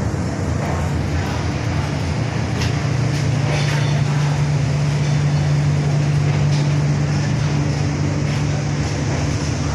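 A steady low mechanical hum under a noisy background, with a few faint ticks.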